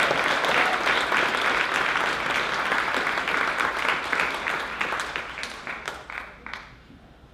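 Audience applause, dense at first, thinning to a few scattered claps and dying out near the end.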